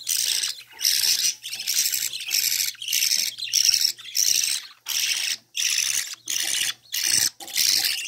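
Budgerigar nestlings giving harsh, raspy begging calls in a rapid, rhythmic run of about two a second, the sound of young chicks pleading to be fed by the hen.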